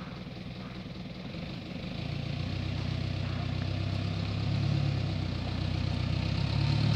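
A minivan's diesel engine idling steadily, a low even hum that grows louder from about two seconds in.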